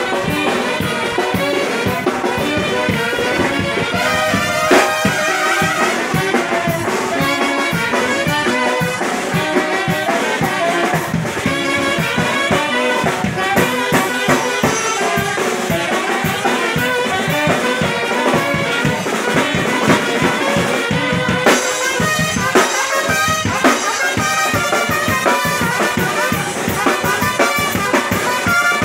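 Live orquesta jarillera, a village wind band of saxophones and other horns over a drum kit with bass drum, playing a lively dance tune with a steady beat.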